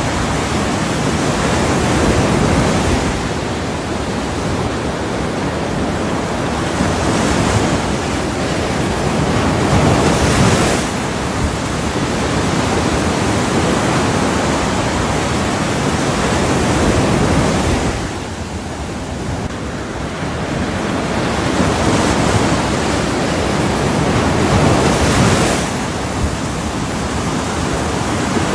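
Ocean surf: a steady rushing wash of waves that swells and ebbs every several seconds.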